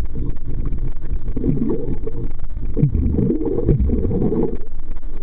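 Muffled underwater sound from a waterproof camera submerged in a swimming pool: low rumbling and gurgling as the water moves around it, with a few wavering swoops.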